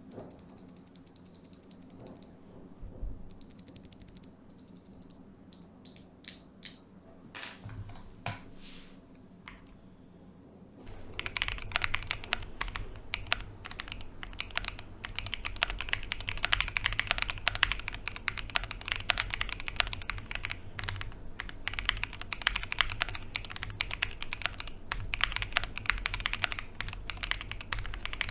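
Cidoo V65 Pro mechanical keyboard in stock form being typed on: a few brief high swishes and scattered single key clicks at first, then steady, fast typing from about eleven seconds in.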